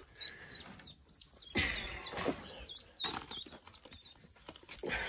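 Newly hatched runner duck ducklings peeping in short, high chirps throughout, with several bursts of rustling and scuffling as they are handled and grabbed among the debris.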